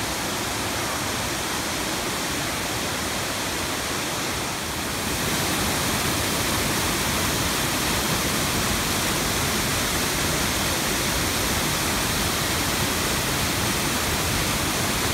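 Waterfall cascading over rock ledges into a pool: a steady, full rushing of falling water that grows louder about five seconds in, as the view moves close to the falling water.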